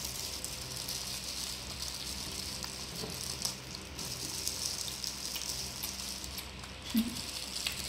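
Steady hiss with faint crackling and a few light clicks from cooked shrimp being peeled by plastic-gloved hands.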